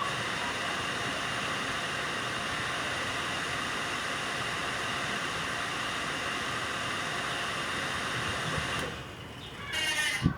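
Jiuru EKV-200 water booster pump running with a steady rushing hiss. It cuts out about nine seconds in, then starts again with a sharp click near the end. The maker puts the pump's fault down to a broken controller.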